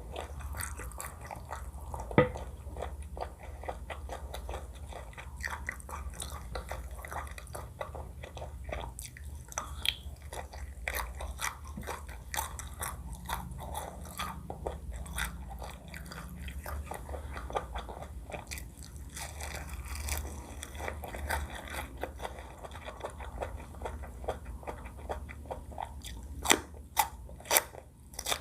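Close-miked chewing and biting of food, with a steady patter of wet mouth clicks and crunches. One loud click comes about two seconds in, and a run of sharper, louder clicks about half a second apart comes near the end.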